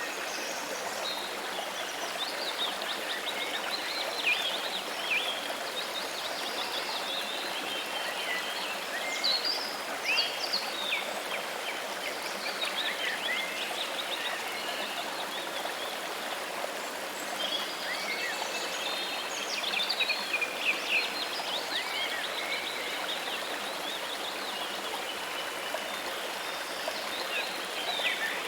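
Steady rush of running water with many birds chirping and trilling over it, in clusters throughout.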